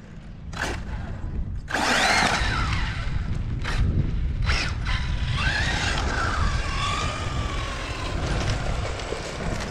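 Traxxas Maxx Slash RC short-course truck's brushless electric motor whining under hard throttle, its pitch rising and falling twice as the throttle is punched and eased, over the rough noise of tyres spraying loose dirt, with a few sharp clicks.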